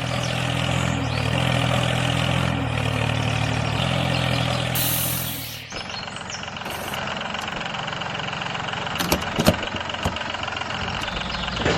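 Engine running steadily with a deep low hum. About six seconds in it cuts abruptly to a thinner, noisier running sound, with a few sharp knocks partway through.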